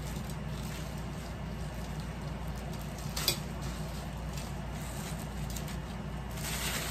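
Plastic packaging crinkling and rustling as a fishing rod is pulled out of its clear plastic sleeve, with a sharper crackle about three seconds in and denser rustling near the end.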